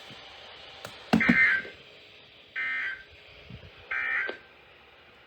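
Emergency Alert System end-of-message data bursts: three short, buzzy two-tone digital bursts about a second and a half apart, signalling the end of the alert. The first comes with a low thump.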